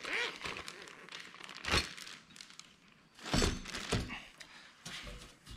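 Clear plastic zip-top bag crinkling and rustling as it is handled and sealed, with a single sharp knock a little under two seconds in.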